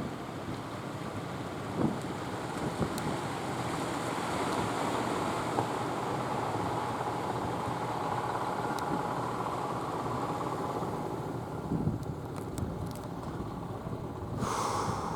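Fishing boat's engine running, growing louder for several seconds and then fading, over wind and surf, with a short rush of noise near the end.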